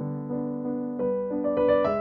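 Background piano music: a slow melody of held notes, with quicker notes coming in during the second half.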